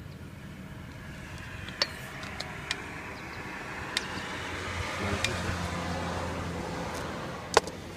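A motor vehicle passing, its noise swelling and fading over a steady low hum, with a handful of sharp clicks from the screwdriver and spring being worked in the open clutch mechanism of an elebia unit; the loudest click comes near the end.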